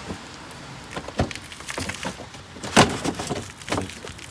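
Irregular clicks and knocks of plastic bumper trim on a BMW F30 being worked loose and handled, with one loud knock about three seconds in.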